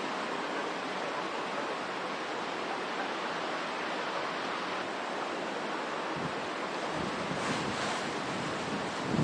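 Hurricane winds and heavy surf making a steady rushing noise, with gusts buffeting the microphone from about six seconds in.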